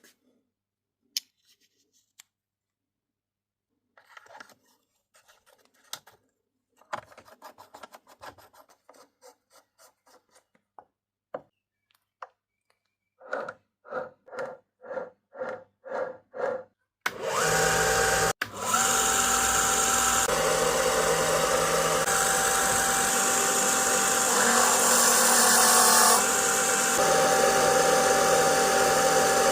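Scattered small clicks and taps, then about eight evenly spaced pulses at about two a second, after which a motor starts and runs steadily with a constant whine.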